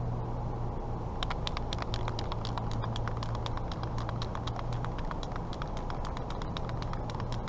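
Aerosol can of Rubber Flexx rubberized spray sealant being shaken, its mixing ball rattling in rapid, uneven clicks that start about a second in and keep going.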